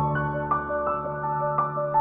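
Background music: soft, slow piano-led instrumental, notes struck at an even pace over a held low tone.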